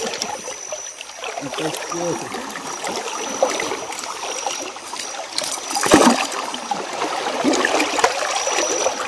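River water trickling and splashing around a wading fisherman, with a brief louder burst about six seconds in. A thin high tone comes and goes over it.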